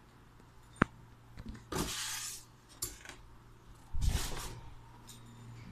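A couple of sharp clicks and two short rustling, scraping noises over a steady low hum.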